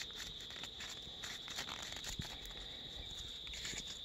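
A steady high-pitched insect drone, with faint crinkles and rustles of a paper seasoning sachet being handled over a bucket of seasoned fish.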